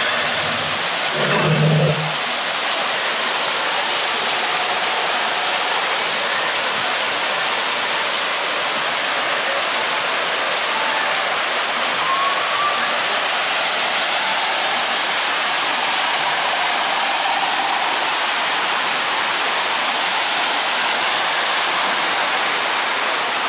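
Water cascading over artificial rockwork into a pool, a steady, even rushing.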